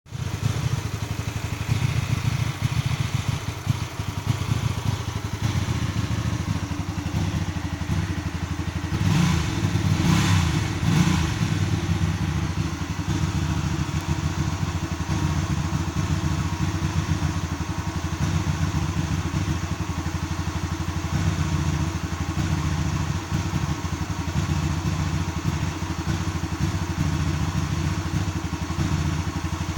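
Hyosung GV250 V-twin motorcycle engine idling roughly, with an uneven pulsing beat. It briefly gets louder for a couple of seconds around ten seconds in.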